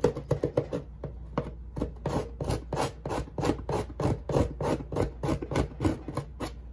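A marker scribbling hard back and forth across a cardboard shipping box's address label, crossing out the address in a fast, even run of scratchy strokes, about five a second.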